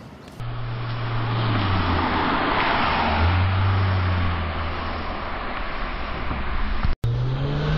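Toyota Mark X (120 series) V6 sedan with an M'sRealize silent aftermarket muffler driving past, a low, subdued exhaust hum whose pitch drops and rises again with the throttle as it passes and pulls away. Near the end the sound breaks off for an instant and another run starts with the engine pulling harder.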